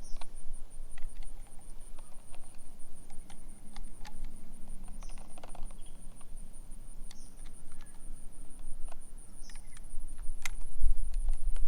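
Insects chirping steadily in a high, finely pulsing trill, with scattered light clicks. A sharper click comes about ten and a half seconds in, followed by a low rumble near the end.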